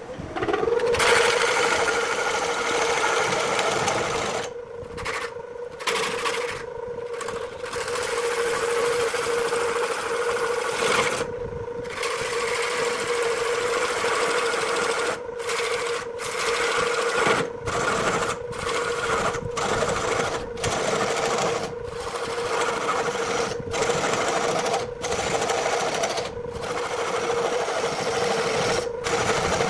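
Wood lathe motor spinning up at the start and then running with a steady hum. A turning gouge cuts a rough, out-of-round wooden blank with a coarse, rapid chatter, and the cutting stops for a moment many times while the motor hum runs on.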